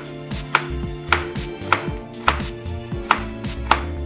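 Knife chopping vegetables on a cutting board in a steady rhythm of sharp knocks, about two a second, over background music.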